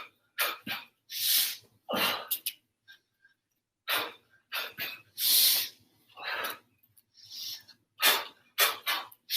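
Forceful, hissing exhalations in short, sharp bursts, one or two a second and unevenly spaced: martial-arts breathing pushed out with each kick.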